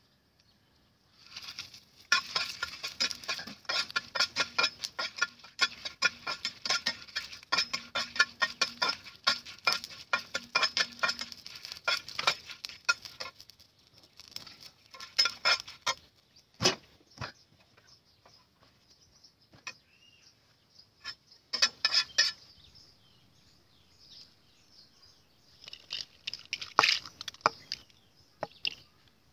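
Dried red chillies crackling and spitting as they fry in a little hot oil in a non-stick pan: a dense crackle from about a second and a half in that thins out after about twelve seconds. Later, scattered clinks and scrapes of a metal spatula against the pan.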